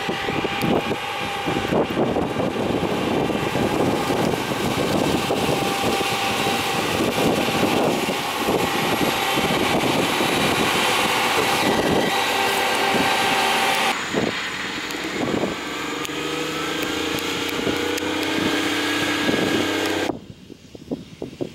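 Claas Lexion 750 combine harvester running while harvesting corn: a loud, dense machine din with steady whines and a constant crackle of impacts. The sound changes abruptly twice, about two-thirds of the way through and again near the end, where it turns quieter.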